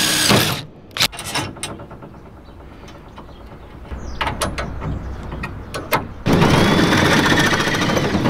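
Cordless power driver driving a screw into a steel conduit fitting stops about half a second in, followed by scattered clicks and clanks of metal tools and pipe being handled; about six seconds in a cordless drill starts driving another screw into the conduit.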